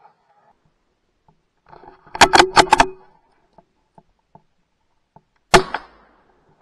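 A single loud gunshot about five and a half seconds in, a hunting gun fired at a gray squirrel, with a short echoing tail. Earlier, about two seconds in, comes a quick run of four loud sharp clicks or knocks.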